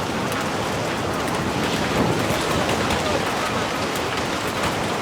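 Heavy rain falling: a steady, dense hiss with many small spattering drops.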